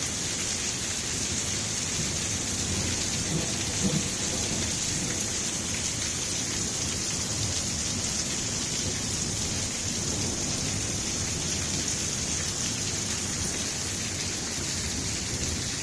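Very heavy rain pouring down steadily in a thunderstorm, an unbroken hiss of downpour.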